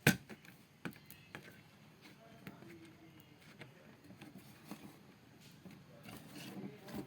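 A sharp click right at the start, then scattered light clicks and taps from hands handling the LED TV's parts and connectors during motherboard fitting.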